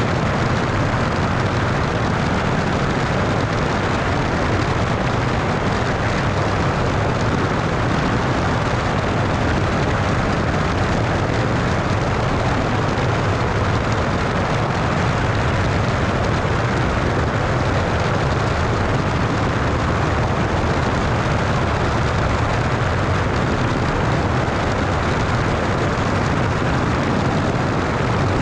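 Cessna 172 in flight, heard through a camera mounted outside the airframe: steady engine and propeller drone buried in constant wind rush over the microphone.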